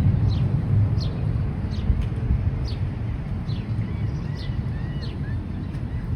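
Deep, low rumble of a jet airliner flying low overhead, easing off slightly over the few seconds. Over it a bird repeats a short falling chirp about once every second, with a few softer whistled notes near the end.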